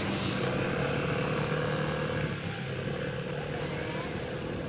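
Steady engine noise with a low, slightly wavering hum.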